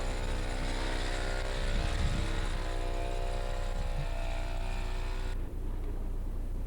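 Gasoline snowblower engine running steadily. About five seconds in, the recording cuts abruptly to a low steady hum.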